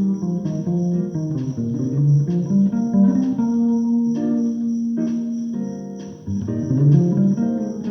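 Bass guitar played solo, plucking a melodic line of notes in its upper register, with one note held for about two seconds midway and a short pause before the playing picks up again.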